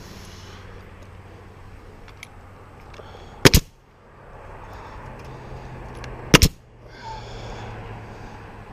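Nail gun firing twice, about three seconds apart, each shot a sharp double crack as it drives a nail through galvanized hardware cloth into the wooden ridge framing.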